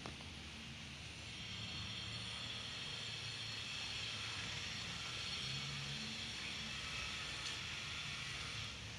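Steady outdoor ambience: a low hum like distant traffic under a high hiss, getting slightly louder about a second and a half in.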